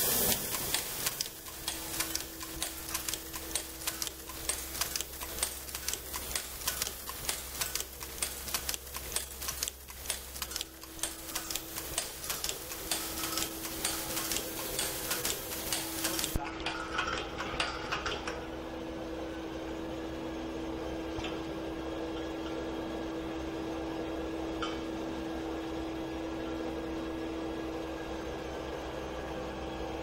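Automatic nylon zipper reverse slider mounting machine running, its mechanism clicking rapidly and continuously. About halfway through the clicking stops, leaving a steady machine hum with a held tone.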